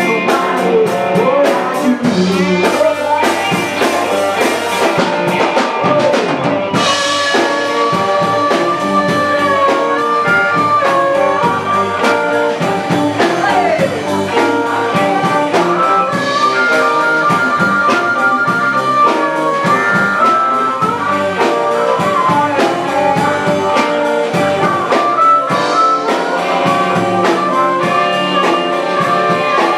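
Live blues band playing, with an amplified harmonica cupped against a vocal microphone taking the lead in long held notes over guitar and drums; a sung line gives way to the harmonica a few seconds in.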